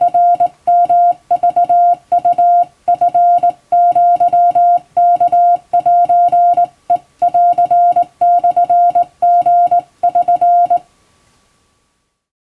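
Hand-keyed Wabun (Japanese) Morse code: a single-pitched CW sidetone beep switched on and off in short dots and longer dashes, with gaps between characters. The sending stops about eleven seconds in.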